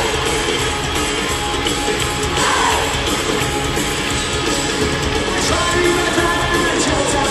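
Live rock band playing loud in an arena: electric guitar, bass guitar and drums, with a lead vocal sung into the microphone near the end.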